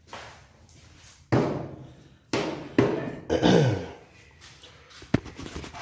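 Handheld phone being handled and moved against clothing: about five sudden thumps, each trailing off into rubbing noise.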